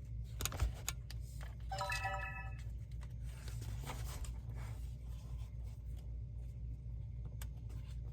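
Handling clicks from a Canon Vixia HF200 camcorder, then about two seconds in a short electronic chime of tones stepping upward from the camcorder as it is operated, over a steady low hum.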